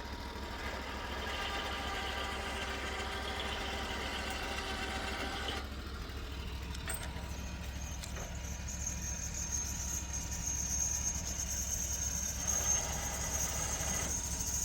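A small remote-controlled electric winch (a 2500) running for about five seconds, whining, then stopping abruptly, over a steady low engine hum; a few light clicks follow, and a thin high whine sets in about halfway.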